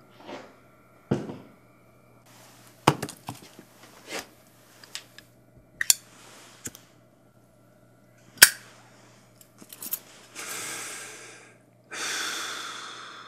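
A series of sharp knocks and cracks, each short and sudden, the loudest about eight seconds in, followed by two longer hissing swells near the end.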